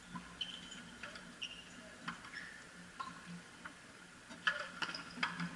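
Frontenis rally: the small rubber ball cracking off rackets, the front wall and the floor as sharp knocks, spaced about a second apart at first and coming faster and louder near the end.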